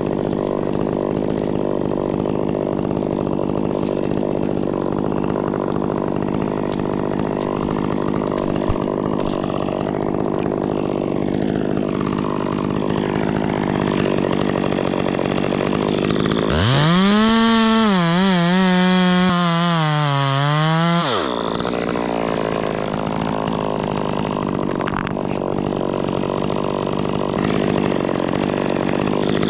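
Stihl chainsaw idling steadily. About halfway through it revs up to full throttle for roughly four seconds, the pitch wavering as the engine works, then drops back to idle.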